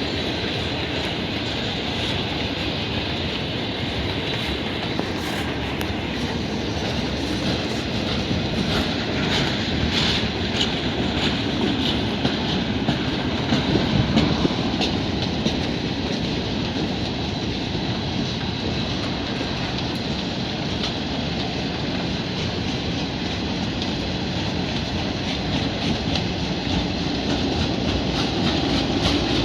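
Freight cars of a Union Pacific train rolling past, wheels clattering steadily over the rail joints.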